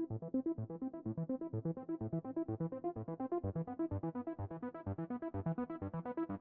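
Background music: quick, evenly repeated synthesizer-keyboard notes.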